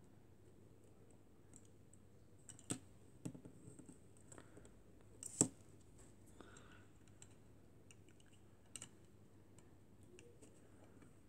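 Plastic LEGO pieces clicking and tapping as a hand handles them, pressing a minifigure onto a LEGO picnic bench. A few scattered clicks, the sharpest about five seconds in.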